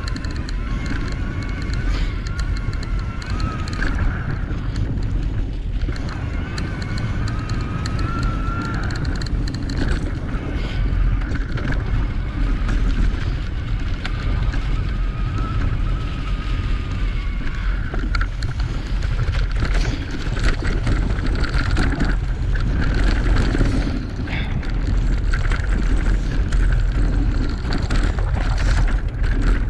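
Electric mountain bike ridden along a rough singletrack trail. Wind buffets the microphone and the bike rattles and clatters over the ground. A thin motor whine rises and falls, clearest in the first half.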